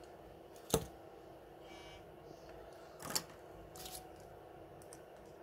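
Small handling clicks of a precision screwdriver and tiny parts on an opened smartphone: one sharp click about a second in, then a shorter clatter around three seconds and a fainter one just after, over a steady background hum.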